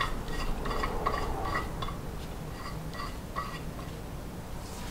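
Light metallic clicks and clinks as a valve spring compressor tool is worked into place on a Honda K20 cylinder head's valve spring retainer, about a dozen small ticks over the first three and a half seconds, then fainter.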